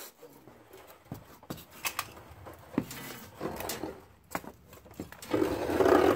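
Metal brake line tubing being handled and fed along a car's underbody: scattered light clicks and taps, then a louder dense rattling scrape about five seconds in.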